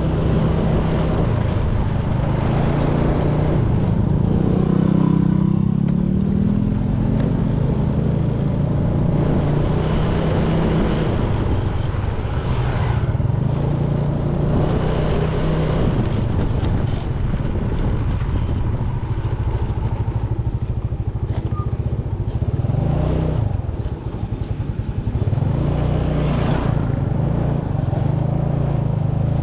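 Small motor scooter's engine running while being ridden, its pitch rising and falling with the throttle and easing off briefly about three-quarters of the way through, over steady road and wind noise.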